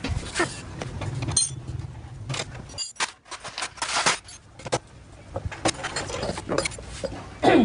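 Loose bolts and hand tools clinking and rattling against a metal parts tray: a run of irregular metallic clinks and knocks.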